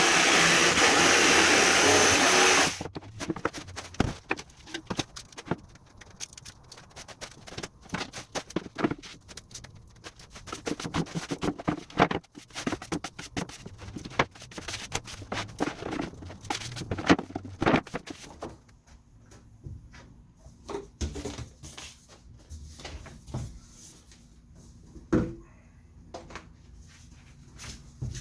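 A loud electric power tool runs for about the first three seconds and then cuts off. After that come many irregular clicks, taps and knocks of hand work, which thin out to occasional knocks over a faint hum in the last third.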